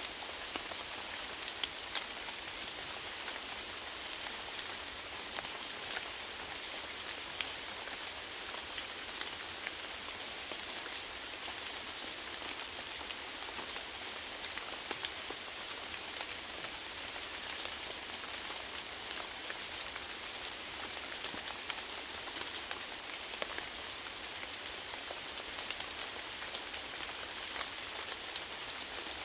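Steady rain falling on a surface, an even hiss with many individual drops ticking sharply through it.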